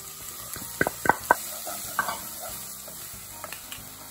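Chopped onion being tipped from a metal bowl into a pot of warm olive oil and garlic, with four sharp knocks against the pot between about one and two seconds in, then a faint steady sizzle as the onion is stirred with a wooden spatula.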